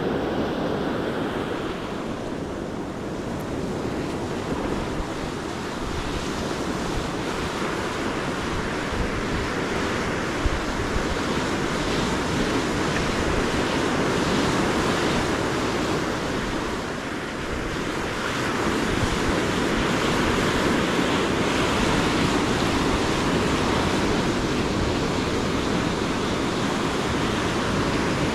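Ocean surf breaking and washing up a sandy beach, a steady rushing that swells and eases, with wind buffeting the microphone.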